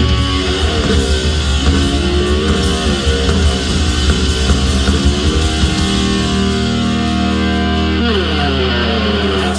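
Live blues-rock band playing: electric guitar bending notes over bass and drums. The drums fade out in the first few seconds and the band holds a long closing chord through the second half.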